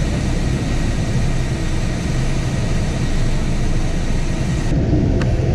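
Loud, steady rumbling noise of a vehicle in motion, heaviest in the low end; the upper hiss thins out about three-quarters of the way through.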